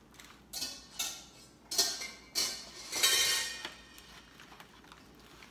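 Disposable aluminium foil roasting pan crinkling and flexing in a series of short bursts as hands press and massage a raw turkey, pushing garlic-herb butter under its skin, with faint wet squishing.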